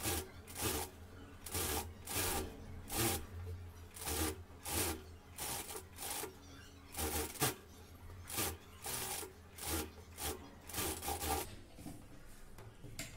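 Industrial sewing machine running as it stitches along the folded edge of thin blouse fabric, with the cloth rustling and rubbing in short repeated bursts as it is guided under the presser foot. The machine's low hum stops near the end.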